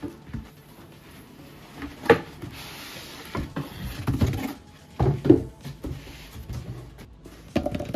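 Cardboard box and foam packing being handled on a wooden desk as the boxed unit is lifted out. There is a sharp knock about two seconds in, a short sliding rustle, a pair of thuds about five seconds in and more knocks near the end.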